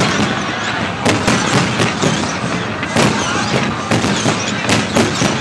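Fireworks display going off: aerial shells bursting in a continuous barrage of sharp bangs, about two a second, over a steady crackling rumble.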